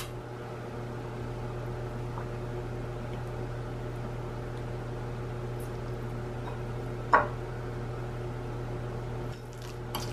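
Steady low background hum, with one short tap about seven seconds in.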